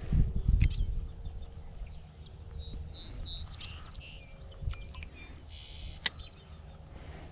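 Small birds calling: short high chirps, some sliding downward, repeated throughout. A low rumble in the first second, and a sharp click about six seconds in.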